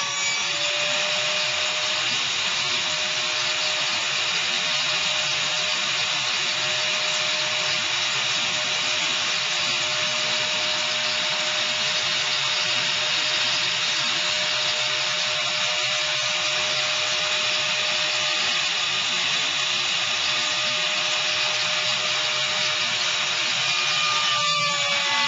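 CNC router spindle running with an end mill cutting a pocket in 19 mm MDF: a steady whine over continuous cutting noise, shifting slightly near the end.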